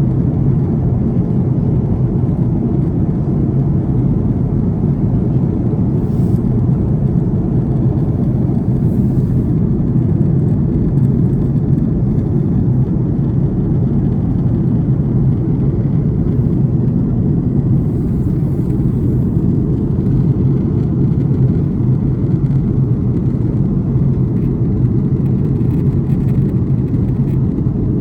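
Steady, loud cabin noise inside an Airbus A330 airliner: an even, low rumble of the jet engines and airflow.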